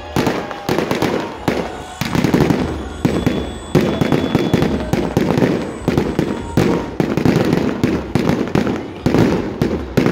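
Fireworks display: aerial shells bursting in rapid succession, about two sharp bangs a second, each trailing off in a rumbling echo.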